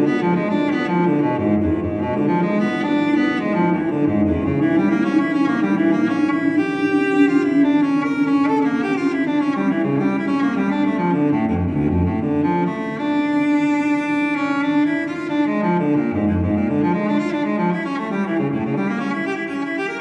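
Instrumental background music led by low bowed strings, cello and double bass.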